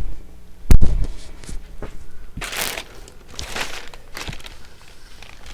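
Plastic packaging crinkling and rustling in short bursts as folded fabric items are handled, with one loud knock about a second in.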